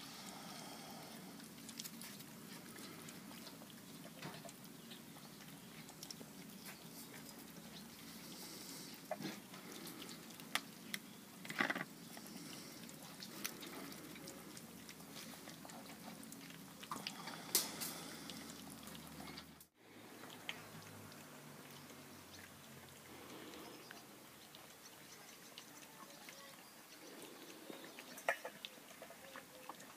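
A litter of puppies eating from a steel and a plastic bowl: soft chewing and lapping, with scattered sharp clicks as the bowls knock and scrape.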